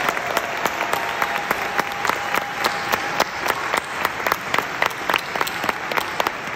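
Audience applauding, with one set of sharp, regular claps standing out at about three a second over the dense clapping of the crowd.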